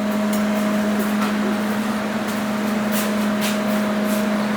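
Steady machine hum with a low, even tone and a few faint ticks; no plasma cutting arc is heard, as the torch is not firing.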